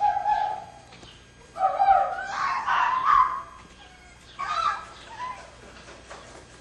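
Caged foxes calling: three bouts of high-pitched cries, a short one at the start, a longer, loudest one from about one and a half seconds in, and a shorter one near two-thirds of the way through.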